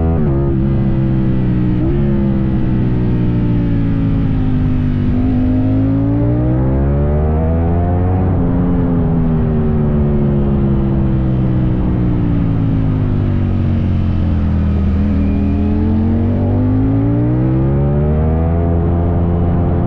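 Ducati Streetfighter V4S's 1103 cc V4 engine running in second gear through an Arrow Works aftermarket exhaust. The revs fall off the throttle for the first few seconds, climb again, sink slowly for a long stretch, then rise once more near the end.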